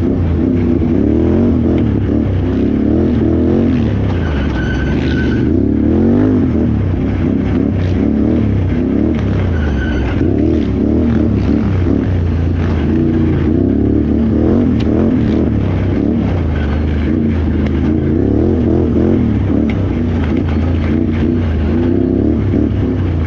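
Can-Am Renegade XXC 1000R ATV's V-twin engine racing under load, its pitch rising and falling over and over as the throttle is worked on and off.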